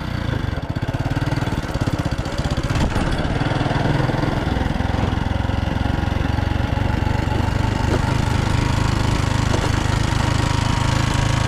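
Small vehicle engine running steadily as it pulls away and carries on down a dirt road, building a little over the first few seconds and then holding an even pace.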